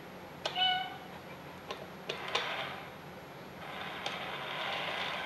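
Mechanical cat-in-a-box coin bank set off by a paw on its front button: a click and a short meow about half a second in, a few clicks of the mechanism, then a motor whirring for over a second as the lid lifts, and another click and meow at the very end.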